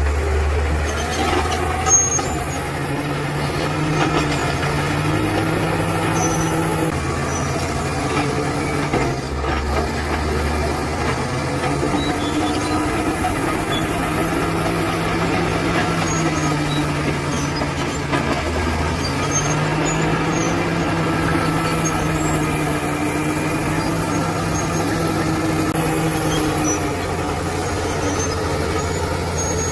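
Bulldozer's diesel engine running steadily under working load, its note rising and falling slowly, with a sharp knock about two seconds in.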